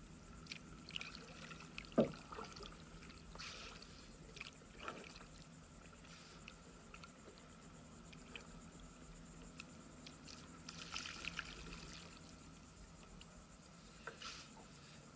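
Faint trickling and small splashes of water around a moving kayak, with one sharp knock about two seconds in.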